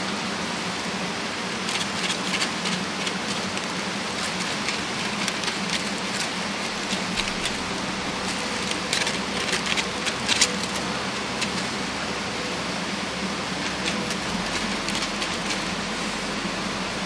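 Steady rain hiss with scattered sharp taps of drops hitting a surface, thickest in the first ten seconds or so.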